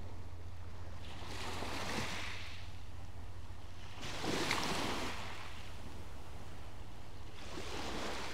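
Small sea waves breaking and washing up the shore, three soft swells of surf about three seconds apart, the middle one the loudest. A steady low hum runs underneath.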